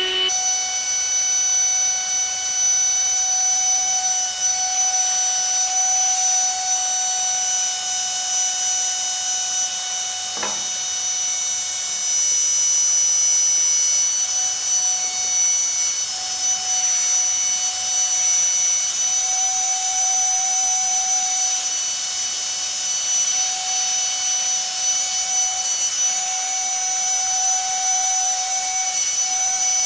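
Ryobi 18V ONE+ battery-powered air compressor running steadily with a high, even whine while it inflates an inflatable stand-up paddleboard. One brief click comes about ten seconds in.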